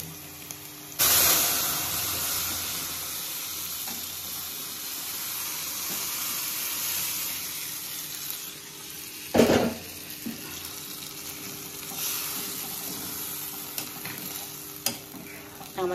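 Cooked mung dal poured into hot oil and fried spices in a kadai: a loud sizzle starts suddenly about a second in and settles to steady sizzling, swelling again as more is poured. A single thump about halfway through is the loudest sound.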